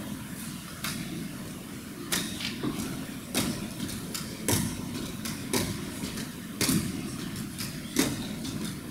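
Crutches knocking on a wooden floor about once a second as a person walks on them, over a steady low background hum.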